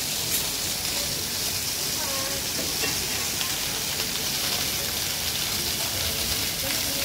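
Water from a fountain's jet spraying up and falling back onto a stacked-stone cone and into the pool, a steady hiss of splashing spray. Faint voices can be heard briefly about two seconds in.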